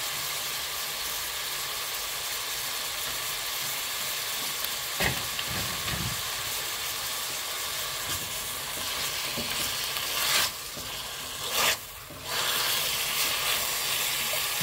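Diced onion and chicken sizzling in a spoonful of oil in a nonstick pot as they are sautéed, with a silicone spatula stirring through them. A few sharp knocks come through: one about five seconds in and two more near the end, where the sizzle briefly dips.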